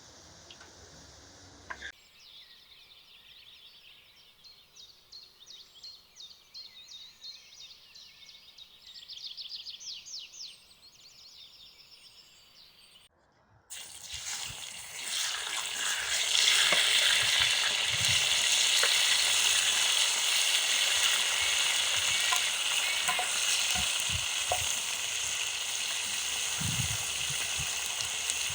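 Chopped veal liver and heart frying in a pan, stirred now and then. A loud, steady sizzle starts about halfway through, after quieter ticking sounds.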